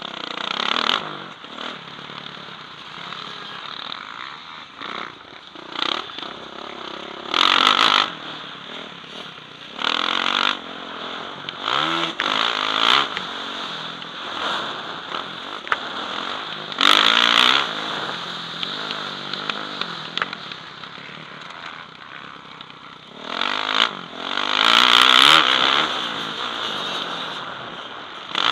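A Yamaha motocross bike's engine, heard from the rider's helmet camera, revving up and dropping off again and again as it is ridden hard round a dirt track. Several loud bursts come at full throttle.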